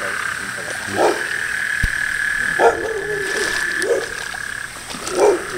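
Frogs calling from floodwater: a steady high trilling chorus, with four short, deeper croaks spread through it. The high trill fades out near the end.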